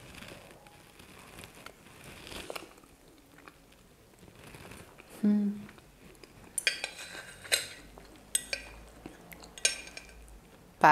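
Knife and fork clinking and scraping on a porcelain plate as a portion of mashed sweet potato and ground beef is cut. The strokes come scattered, with a few sharper clinks in the second half.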